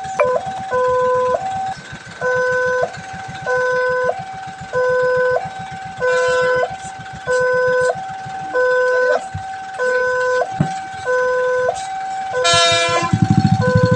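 Railway level-crossing warning alarm sounding, an electronic two-tone signal that alternates a low and a higher tone about every two-thirds of a second, the signal that a train is approaching. About twelve and a half seconds in, a short loud horn blast cuts across it, and a low engine rumble rises near the end.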